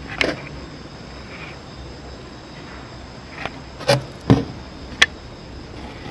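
A few short knocks and clicks over a steady background hiss, the loudest pair about four seconds in.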